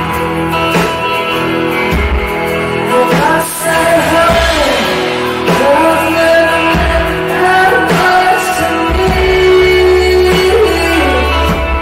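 Live music: a woman singing long held notes into a microphone over guitar and a low bass.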